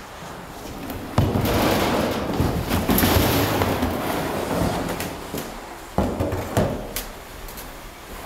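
Plastic kayak hull dragged along the floor, a rough scraping that starts suddenly about a second in and is heaviest in the first half, with several sharp knocks and bumps as the boat hits things.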